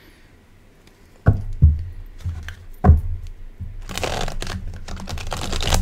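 Oracle cards being handled on a table: a few knocks in the first half, then a couple of seconds of shuffling and rustling.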